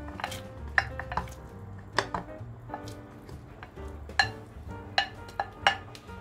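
A wooden spoon knocks and scrapes against a bowl as diced carrots and potatoes are tipped into a pot of broth. There are about a dozen sharp, irregular clinks and knocks over soft background music.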